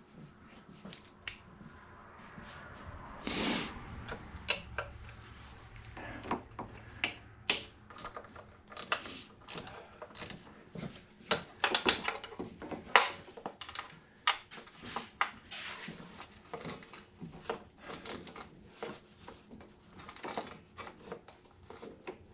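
Irregular clicks, taps and clinks of hand tools and small metal parts while a portable generator's carburetor is being taken apart, with a brief rustle about three and a half seconds in.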